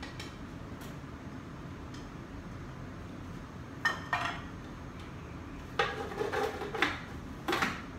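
Plastic food processor bowl and lid clattering as they are handled and fitted together. A few light clicks come first, then louder short knocks and rattles from about four seconds in.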